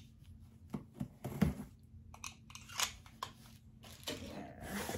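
Cardboard shipping box being opened by hand: irregular short scratches and taps as the packing tape is cut and torn, then a longer rustle of cardboard and packing near the end.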